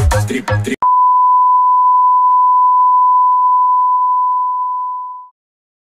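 An electronic dance track with a heavy pulsing kick cuts off abruptly under a second in, and a long steady beep follows: one pure tone held for about four and a half seconds, tapering off just before it stops.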